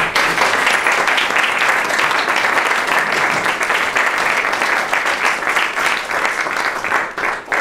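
Audience applauding: dense clapping that starts suddenly and thins to scattered claps near the end.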